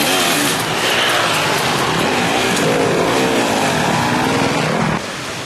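Enduro dirt bike engines revving hard under load as the bikes climb a sandy hill one after another, the pitch rising and falling with the throttle. The sound drops off briefly near the end.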